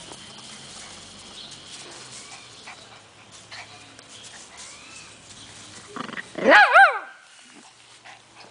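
Poodle giving one loud, high whine lasting about a second, its pitch rising and then wavering up and down, about six seconds in, during rough play.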